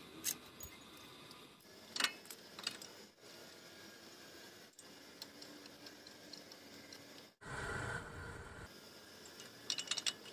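Light metallic clicks and clinks of a Toyota Hilux front brake caliper's pads, pins and clips being worked by hand, a few sharp clicks standing out. About seven and a half seconds in, a brief stretch of louder steady noise.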